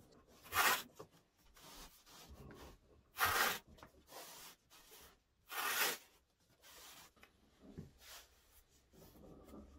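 Wide masking tape being pulled off its roll in three loud tearing pulls, about two and a half seconds apart, with quieter rustling as the tape is pressed and wrapped into a rim around a round form.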